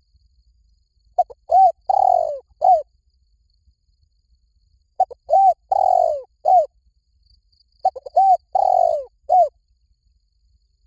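Spotted dove cooing: three similar phrases a few seconds apart, each a couple of short coos, one longer drawn-out coo and a short closing coo.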